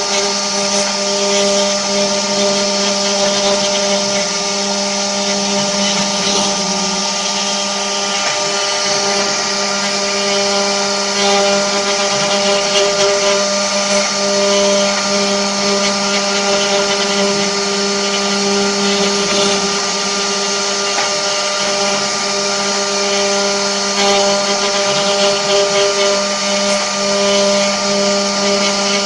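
Spindle motors of a multi-spindle 4-axis CNC wood router running steadily: an even whine made of several steady tones over a strong high hiss.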